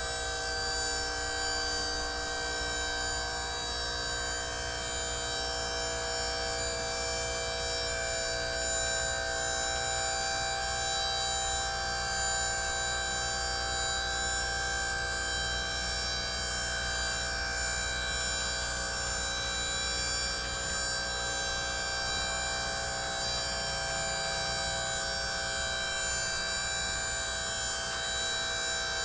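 The hydraulic hoist pump of a Chevrolet C5500 dump truck runs with a steady whine while the dump bed is raised.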